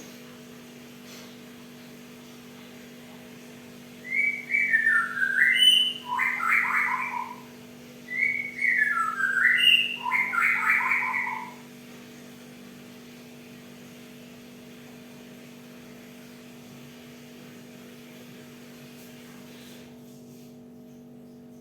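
Cinereous tit singing two short phrases of whistled, gliding notes, the first about four seconds in and the second about eight seconds in, over a steady low background hum.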